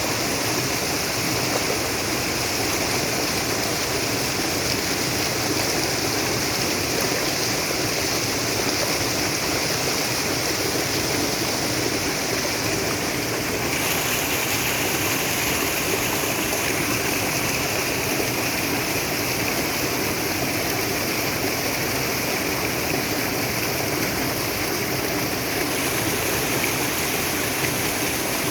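Naturally flowing water rushing steadily, like a stream running over rocks. Its tone changes slightly and abruptly about halfway through and again near the end.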